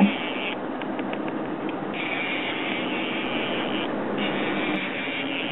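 Twin Evinrude 115 outboard engines running steadily at trolling speed, under a fishing reel's high buzzing that comes in two long spells, from about two seconds in to near four and again just after, as a hooked fish works against the line.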